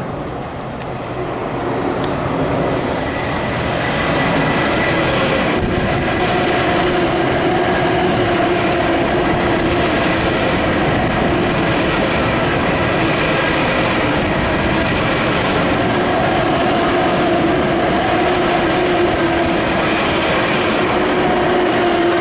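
Long Island Rail Road train running steadily on the rails, a loud continuous rumble with wheel clatter and a steady whine from the running gear. The sound builds over the first few seconds, then holds.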